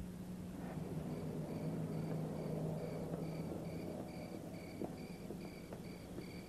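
Crickets chirping at night in an even rhythm, about three short chirps a second, starting about a second in, over a low steady hum.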